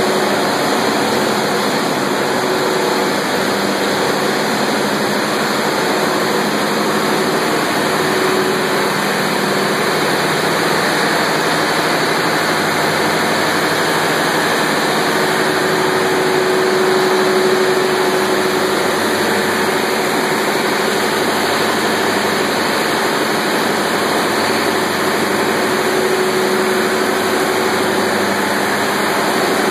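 Steady, loud din of cassava starch processing machinery running, with a faint low hum.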